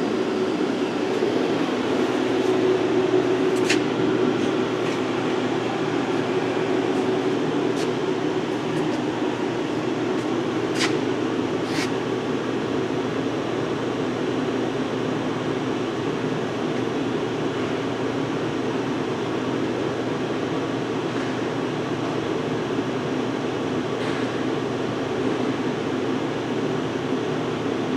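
Steady machinery hum from a powered-up CNC lathe and its shop, with a few faint clicks.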